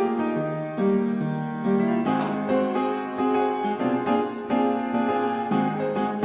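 Background piano music, a melody of notes changing every half second or so.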